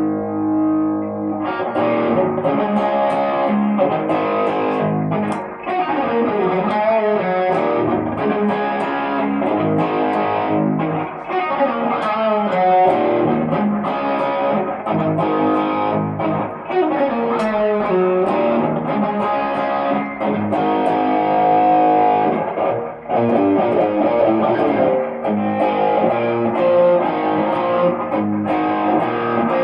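Tokai Love Rock LS214, a Les Paul–style electric guitar, played with distortion: a held chord, then a run of lead lines and chords with several notes bent up and down in pitch.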